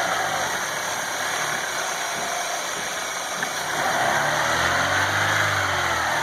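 Chevrolet Aveo T250 petrol engine running under the hood, revved up and back down once about four seconds in, with a faint whistle slipping through. The whistle and gurgle come from air being sucked in past the crankcase ventilation valve, not from the cam phasers.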